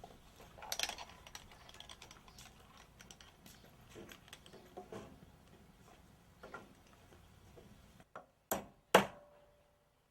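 Faint scattered clicks and taps. Then, after a sudden drop to silence, two sharp hammer strikes about half a second apart near the end. The second strike is the loudest and rings briefly.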